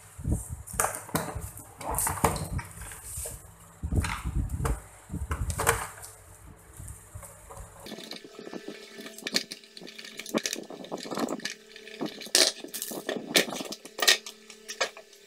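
Plastic wrap crinkling and rustling as it is handled around a UPS inverter's casing. After a sudden change about halfway through come sharp clicks and knocks: screws being taken out and the inverter's case being opened.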